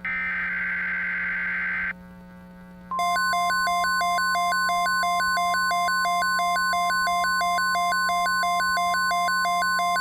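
Emergency alert broadcast tones. A harsh, buzzy data burst, the SAME header of an EAS alert, ends about two seconds in. After a brief pause, a loud alert tone starts about three seconds in: a steady high tone with a second tone beeping rapidly below and above it, several times a second. This signals that a weather watch announcement is about to follow.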